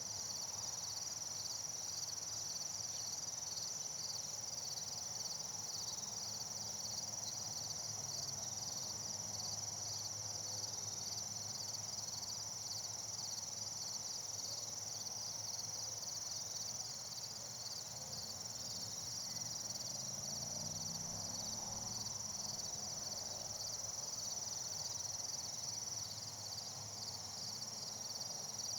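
Crickets chirping in a continuous high chorus, a fast even pulsing that holds steady throughout, over a faint low hum.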